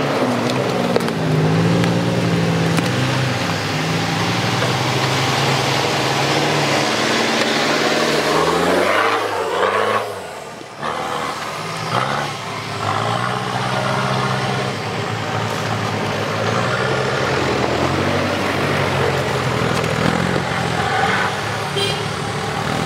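Engines of off-road 4x4s revving under load as they climb a loose dirt track, pitch stepping up and down with the throttle. About nine seconds in the revs fall away and it goes briefly quieter, then another engine picks up and runs on.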